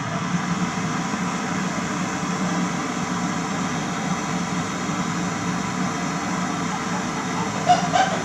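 Steady mechanical running noise, a hiss over a low hum, with a couple of short clicks near the end.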